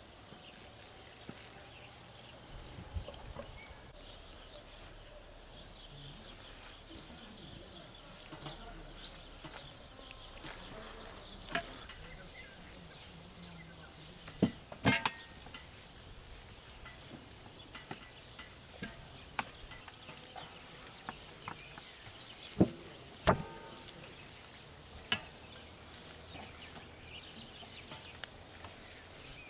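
Hands rubbing herb butter over a raw turkey on a metal tray: soft handling sounds with a few sharp knocks against the tray, two close together midway and two more about three quarters through, the last ringing briefly.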